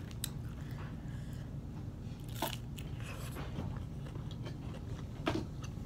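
Chewing and crunching bites of a crisp fried tostada shell topped with crab ceviche, with about three sharp crunches spread through it.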